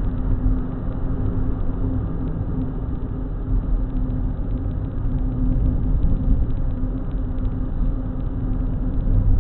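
A car driving at a steady speed, heard from inside the cabin through a cheap dash cam's built-in microphone: a steady low rumble of engine and road noise with a constant hum, sounding dull and muffled.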